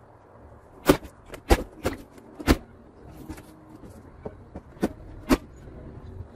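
Sharp knocks and bumps, about six over five seconds, as a window air conditioner unit is shifted and pushed into place in its window frame; the unit itself is not running.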